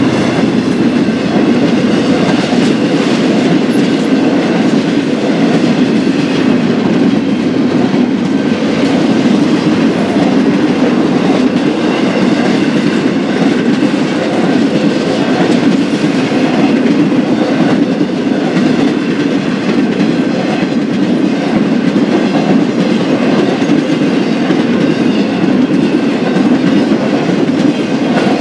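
BNSF freight train's cars rolling past at speed: a steady, loud rolling noise with repeating clatter from the wheels.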